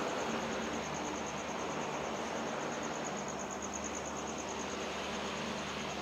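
Insects chirping in a fast, even, high-pitched pulse over a constant hiss and a low steady hum.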